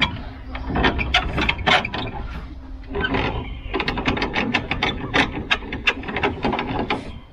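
Caravan jockey wheel being wound up by its hand crank on the drawbar, a rapid run of mechanical clicks and rattles that grows denser about halfway through.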